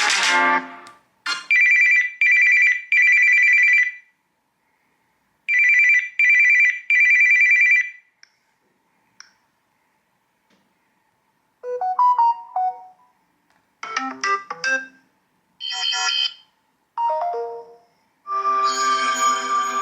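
Samsung Galaxy S24 Ultra ringtones and text tones played one after another: an electronic phone-style ring in two sets of three pulses, a couple of faint blips, then a run of short melodic chimes ending in a longer, fuller chord.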